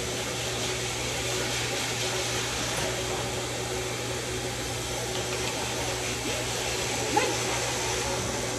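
Electric dog grooming clippers with a #4 blade running with a steady hum while clipping a Labradoodle's curly coat. A brief clack about seven seconds in.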